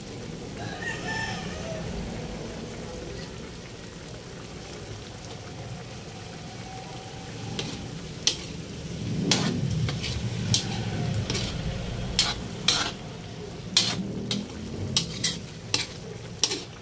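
A metal ladle and spatula stirring chicken and carrots in broth in a wok, scraping steadily. From about halfway through, about a dozen sharp clinks of metal striking the pan.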